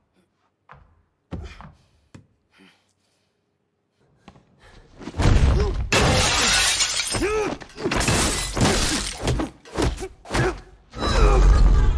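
Movie fight sound effects: a glass pane shattering loudly as a head is smashed through it, followed by a rapid run of heavy hits and crashing. Before that, a few seconds of near quiet with faint taps.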